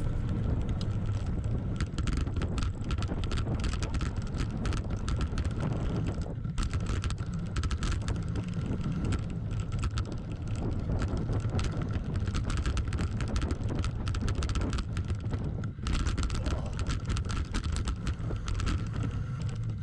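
Wind buffeting the microphone and tyres rumbling over a dirt trail as a Voodoo Bizango hardtail mountain bike rides downhill, with dense clicking and rattling from the bike and the ground.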